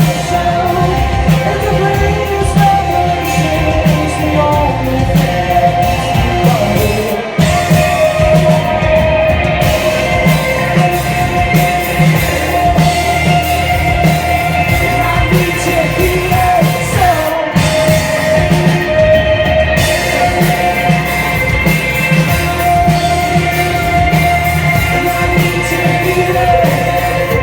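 Live rock band playing at full volume, with a male lead singer over electric guitars and a steady drum beat.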